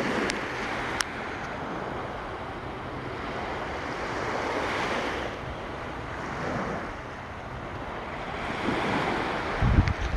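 Ocean surf breaking and washing up the beach in repeated swells, every two seconds or so. A couple of sharp clicks come in the first second, and wind buffets the microphone near the end.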